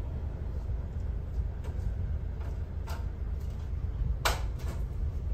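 Stopped car idling, a steady low rumble, with a few short clicks and one sharper click about four seconds in.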